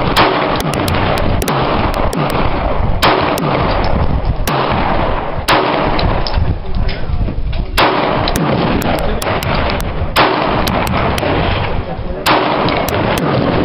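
Firearms fired repeatedly on a shooting range: many sharp shots at irregular intervals, sometimes several within a second, over constant loud background noise.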